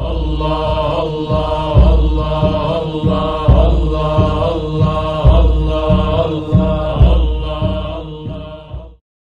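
Intro music: devotional chanting over a steady, heavy drum beat, fading out and stopping near the end.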